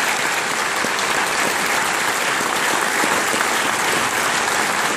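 Audience applauding steadily, welcoming a speaker to the podium.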